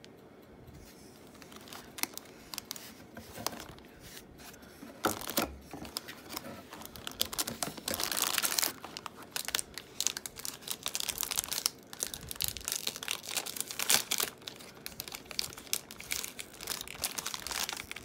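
Heroclix foil booster pack being torn open and crinkled by hand: light handling at first, then steady crinkling and tearing from about five seconds in, loudest around eight seconds in.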